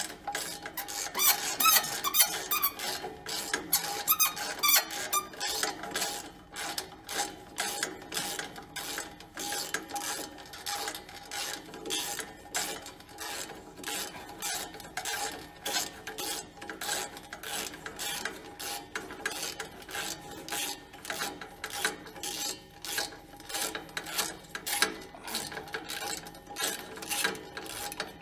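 Hand ratchet wrench clicking in a steady run of short, sharp clicks, about three a second, as it is worked back and forth on a rusted bolt or O2 sensor under the truck.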